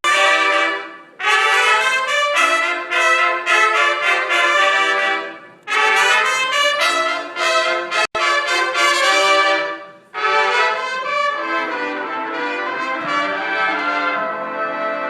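Brass-heavy marching band playing loudly, trumpets and trombones to the fore, in phrases of a few seconds broken by brief pauses, with an abrupt cut about eight seconds in.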